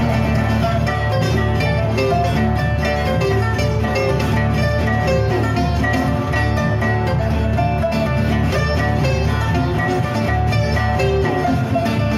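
Live instrumental blues on pipa and resonator guitar: a steady stream of plucked notes from both instruments.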